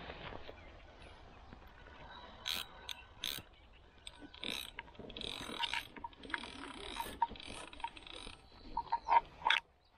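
Fishing reel ratcheting and clicking in irregular bursts, with a few louder clicks near the end.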